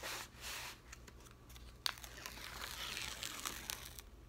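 Crinkling and rustling of a diamond painting canvas and its cover sheet being handled and flattened, with a sharp click near two seconds in.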